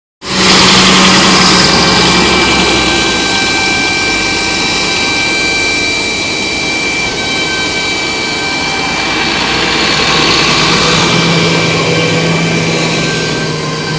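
Large diesel tractors and silage machinery running close by: a loud, steady engine drone with several high, steady whines, and a lower hum that comes up about eleven seconds in.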